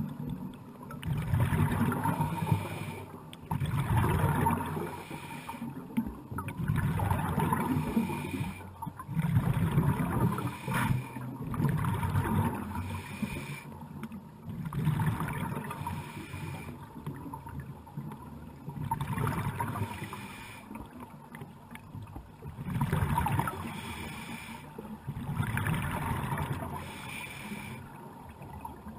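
Scuba diver's breathing through a regulator, heard underwater: exhaled bubbles gurgle out in a burst every two to three seconds, with quieter breaths in between.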